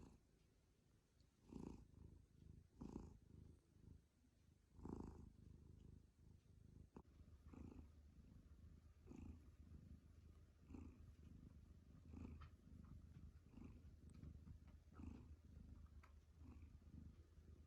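Domestic cat purring close by, a low steady rumble that swells with each breath about every second and a half, a little louder in the first few seconds.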